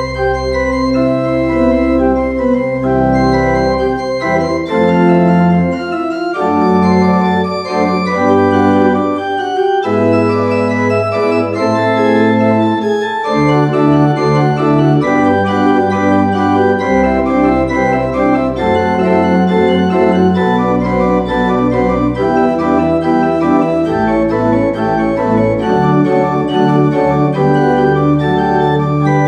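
Church pipe organ playing the service prelude: full sustained chords over deep pedal bass notes that change every second or two.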